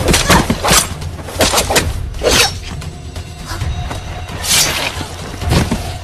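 Film soundtrack: a run of sharp crashes and impacts over music and a low rumble. Several come close together in the first two and a half seconds, then two more near the end.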